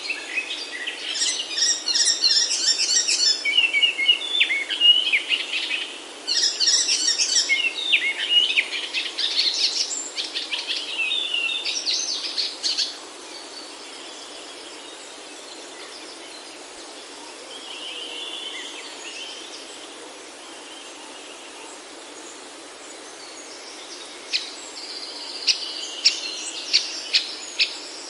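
Forest birds singing: a dense stretch of rapid, varied song through roughly the first half, a faint call a little later, then a run of five or six sharp, loud calls near the end, over a steady background hiss.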